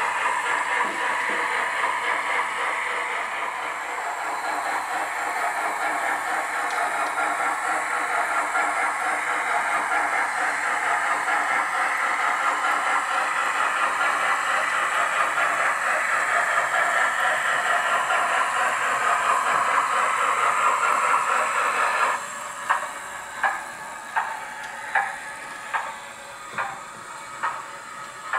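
Steam locomotive sound from the sound decoder and speaker of a Hornby OO gauge Merchant Navy class model, a steady hissing steam rush. About three-quarters of the way through it drops in level and turns to evenly spaced beats, a little more than one a second.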